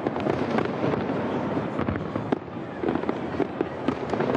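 Fireworks display going off: a dense, continuous run of bangs and crackling bursts in quick succession.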